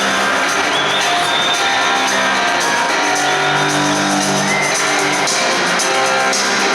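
Rock music with strummed guitar played over an arena's sound system.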